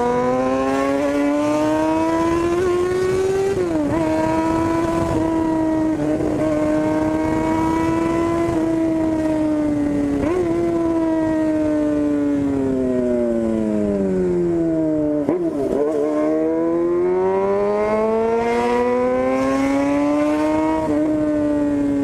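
Yamaha FZ6's inline-four engine through a straight-through 4-into-1 racing exhaust while riding, the note rising and falling with the throttle. Gear changes break the pitch about 3.5 s and 10 s in; it then drops low as the bike slows, about 15 s in, and climbs again.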